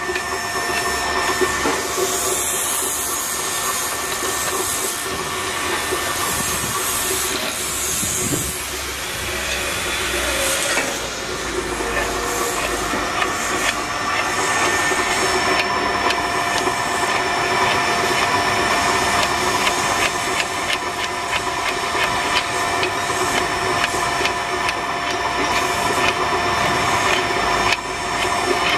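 Electric winch running, its motor and reduction gearbox giving a steady whine of several held tones while the drum spools steel wire rope on, with a dense run of small clicks as the rope winds.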